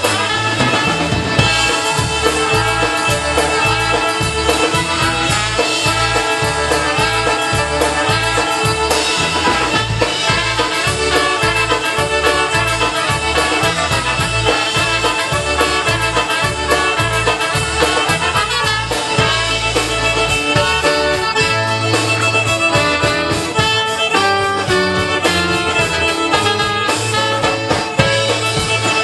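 Live polka band playing a polka: fiddle, accordion, trumpet, drums and bass guitar over a steady two-beat bass pattern.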